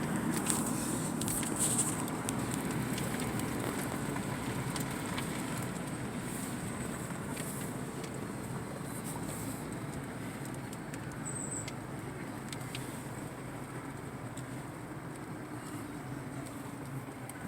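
Steady road and engine noise of a car driving, slowly getting quieter, with a few faint clicks near the start.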